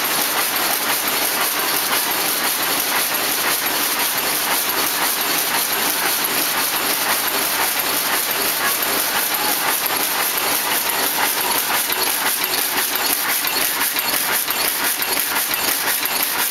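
Fiberglass mesh weaving loom running at speed: a steady, rapid mechanical clatter with a lot of hiss.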